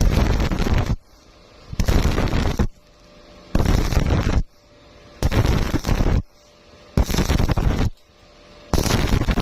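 Stick (arc) welding: the arc crackles and sputters in short bursts about a second long, broken by pauses of about the same length, about five or six times over. This on-off pattern fits stitch or tack welding a square-pipe corner.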